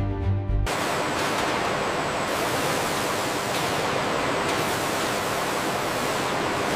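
Music cuts off under a second in and gives way to a steady, even rushing noise with no rhythm or distinct events.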